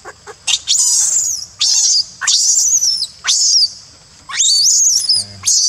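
Infant macaque crying: a rapid series of about seven shrill, high-pitched screams, each sweeping sharply up and then sliding down, coming one after another with barely a pause.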